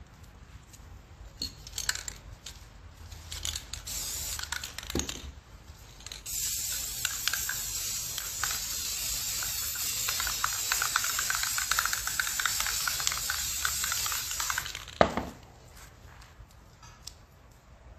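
Aerosol spray paint can spraying in one continuous hiss of about eight seconds. It is preceded by a few seconds of light scratching and tapping, and ends with a single sharp knock.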